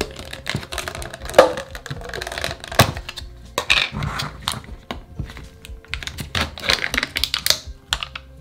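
Plastic cottage cheese tub being handled and its tight lid pried and peeled off: a run of clicks and taps with bursts of crinkling plastic.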